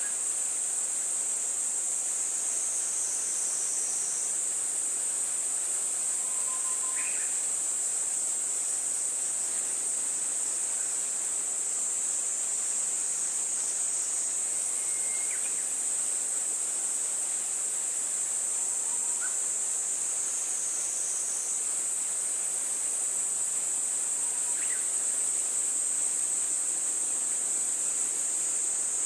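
A continuous, high-pitched insect chorus that dips slightly in pitch twice, with a few faint short chirps.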